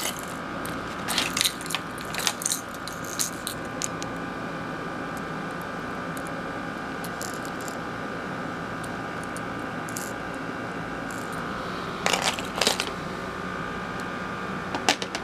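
Small clicks and metallic clinks of a Whopper Plopper topwater lure, with its treble hooks, being handled in its clear plastic packaging. They come in clusters in the first few seconds and again near the end, over a steady background hum.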